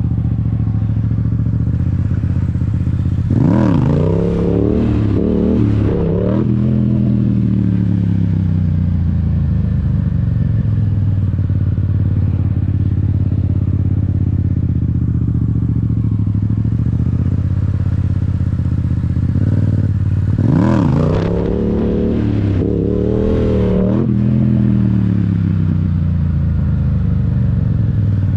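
Yamaha R7 parallel-twin engine heard from on the bike, running at a steady low pitch and revved up hard twice, about three seconds in and again about twenty seconds in. Each time the note climbs and wavers for about three seconds before dropping back.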